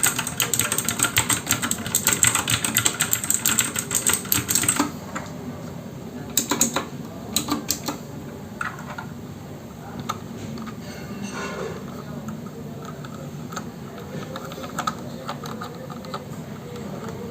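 Royal Kludge RK61 mechanical keyboard with clicky blue switches being typed on: a fast, dense run of keystrokes for about five seconds, then only a few scattered key presses and softer clacks.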